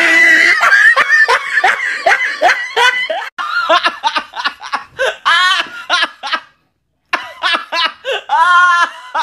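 Two young women laughing hard together in rapid, high-pitched bursts, breaking off for about half a second past the middle.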